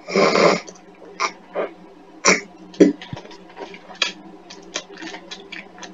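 Mouth noises made right up against a microphone: a loud breathy blast about half a second long at the start, then a scattered run of short clicks and pops.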